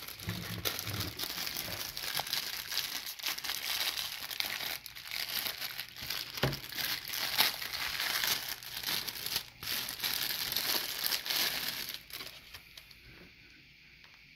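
Packaging crinkling and rustling as a collectible is unwrapped by hand, stopping about two seconds before the end.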